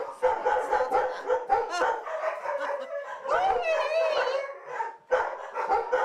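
Several greyhounds barking over one another in their kennels, with a wavering howl lasting about a second, starting about three seconds in.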